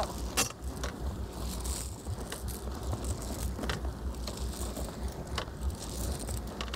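A kedge anchor chain being paid out by hand over a boat's stern, giving a few scattered sharp clinks. Steady wind rumble on the microphone runs underneath.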